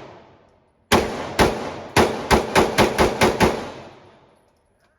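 Glock 43x 9mm subcompact pistol fired nine times in quick succession, starting about a second in. The shots come faster toward the end, about four a second, and the echo dies away after the last one.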